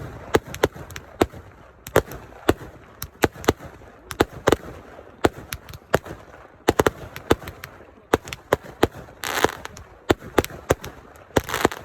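Fireworks going off: a fast, irregular string of sharp bangs, several a second, with two longer crackling bursts about nine seconds in and near the end.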